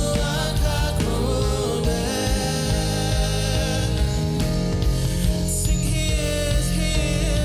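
Live Christian worship music: a band with steady bass and a sung melody over it.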